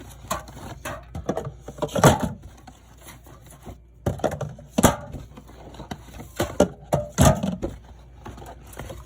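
Soda cans being handled and set into a mini fridge: a string of irregular knocks and clunks, the loudest about two, five and seven seconds in.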